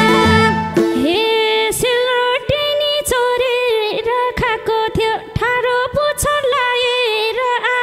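A woman singing a Nepali dohori folk verse into a microphone, almost unaccompanied. The madal drum stops about a second in, leaving the voice over a held note.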